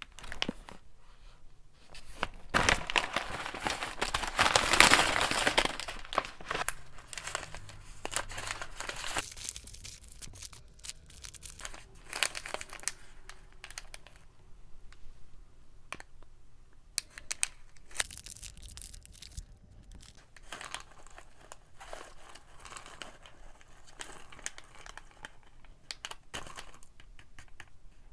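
Small plastic snack packets of wasabi green peas crinkling as they are handled and torn open. The crinkling is loudest and densest a few seconds in, then comes in short crackles and clicks.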